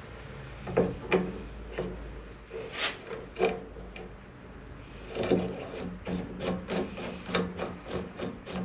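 Metal grinder parts being fitted together by hand: a run of irregular light knocks, clinks and scrapes as a wheel and its new bearings are worked onto a 2x72 belt grinder. The knocks come closer together in the second half.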